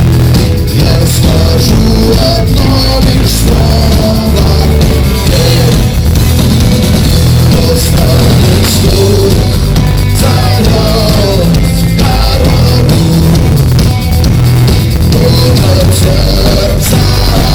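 Loud rock music: a full band with drum kit and bass, with a voice singing over it.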